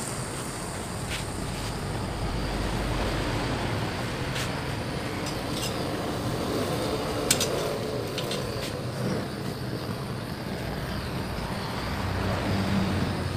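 Steady rushing noise of an LPG gas torch flame burning thick paint and body filler off a steel motorcycle fuel tank. A few short scrapes and clicks come from metal scrapers working the softened coating.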